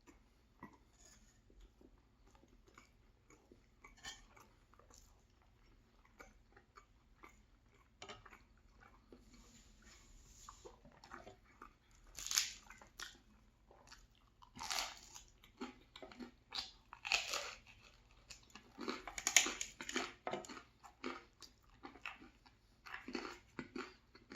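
Close-miked chewing and biting of crusty food, with irregular crunches and wet mouth sounds that grow louder and busier in the second half.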